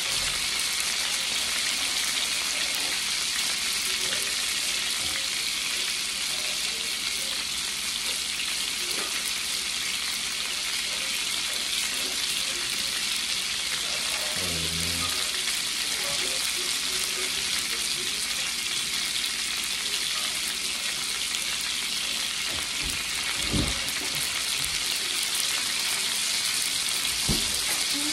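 Cheese-stuffed beef burger patties frying in hot grease in a skillet: a steady sizzling hiss, with two soft knocks near the end.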